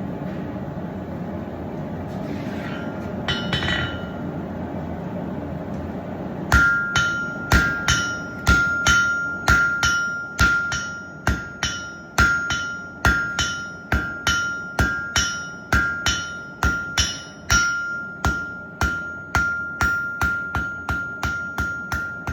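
Hand-hammer blows on a Hay-Budden anvil while forging 3/8-inch round steel stock, each strike leaving a clear ringing tone. The blows begin about six seconds in, after a steady rushing noise, and come about one to two a second, quickening toward the end.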